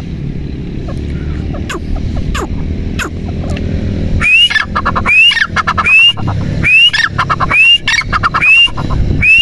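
Grey francolin (teetar) calling. A few sharp introductory clicks lead, about four seconds in, into seven loud, regularly repeated 'tee-tar' phrases, roughly one every 0.8 seconds. Each phrase is a rising whistle followed by a quick rattle.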